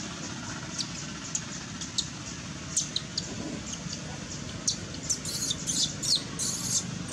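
Baby long-tailed macaque's high-pitched squeaks: short and scattered at first, then coming thick and fast over the last two seconds, over a steady low hum.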